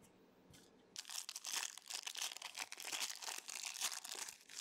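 Foil trading-card pack wrapper crinkling and tearing as it is pulled open by hand, a dense run of fine crackles starting about a second in and stopping shortly before the end.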